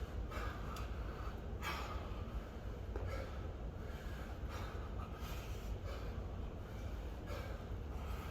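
A man breathing hard: short, forceful breaths through the nose and mouth, about one a second, the effort breathing of a set of deep squats with a kettlebell. A steady low hum sits underneath.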